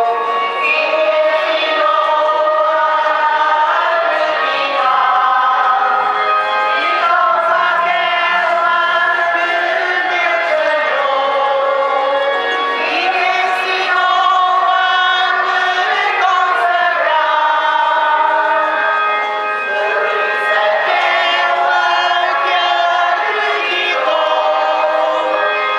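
Choir singing a slow hymn in long held notes, several voices together.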